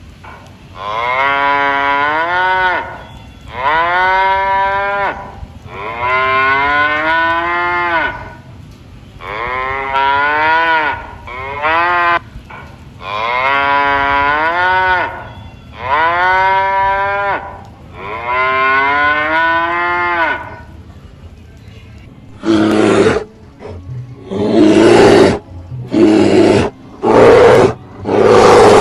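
Cattle mooing: about eight long calls in a row, each rising in pitch at the start and then held for a second or two. Near the end, a run of shorter, harsher calls from an animal that the material does not identify takes over.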